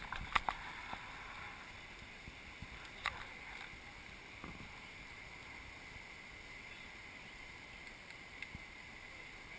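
Whitewater rapids rushing steadily, with a few sharp clicks in the first few seconds.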